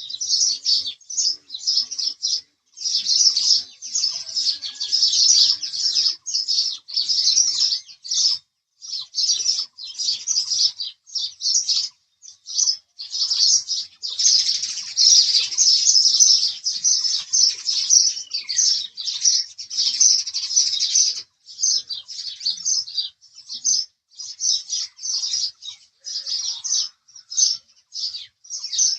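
House sparrow chirping: rapid runs of short, high chirps broken by brief pauses, with a denser, louder stretch of chirping about halfway through.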